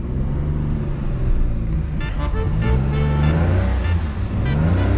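Small car's engine revving and labouring as it pulls up a steep street, its pitch rising and falling. Background music plays over it from about two seconds in.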